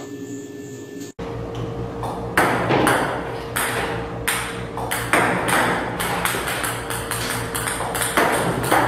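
Ping-pong balls fired by a table tennis robot, bouncing and clicking on the table: many quick sharp pings at an irregular pace, starting about a second in.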